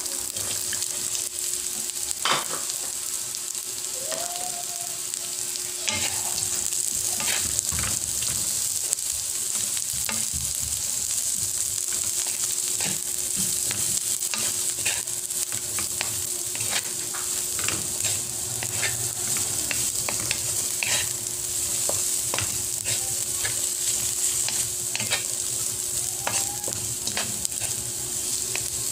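Sliced carrot, onion and garlic sizzling steadily in a little oil in a wok as they are stir-fried, with frequent sharp clicks and scrapes of the stirring utensil against the pan.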